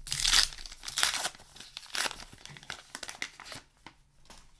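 A paper-wrapped trading-card booster pack being torn open and its wrapper crinkled, in several short rustling bursts, then a few light clicks near the end as the cards are handled.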